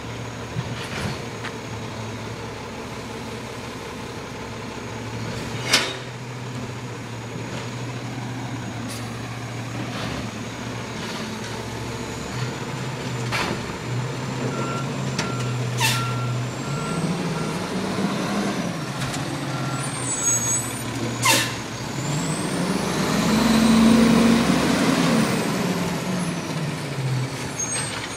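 Diesel engine of a recycling garbage truck running through a turn, with three short sharp air-brake hisses. A reversing alarm beeps steadily for several seconds midway. Near the end the engine revs up as the truck pulls away, the loudest part.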